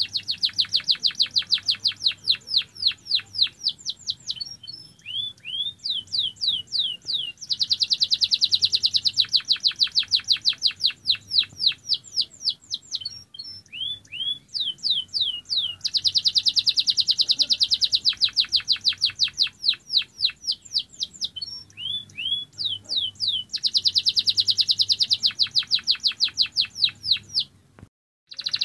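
Domestic canary singing: long, fast rolling trills alternating with slower runs of sweeping notes, the pattern repeating several times. The sound drops out briefly near the end.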